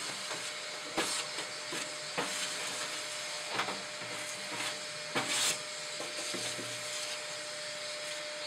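Shop vac running with a steady hiss and a thin whine as its hose nozzle sucks ash out of a pellet grill's fire chamber. The nozzle knocks and scrapes against the inside of the grill a few times.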